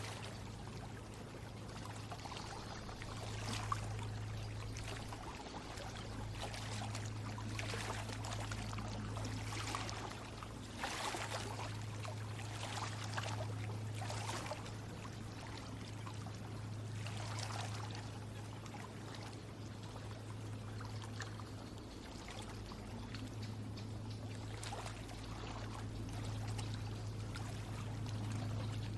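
Water trickling and splashing in soft, irregular swells every second or two, over a steady low hum.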